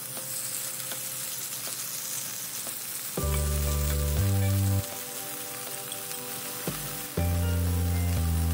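Marinated chicken thigh pieces sizzling as they hit a hot oiled pan, a steady high hiss that starts as the meat goes in. Louder background music with low held notes comes in about three seconds in and again near the end.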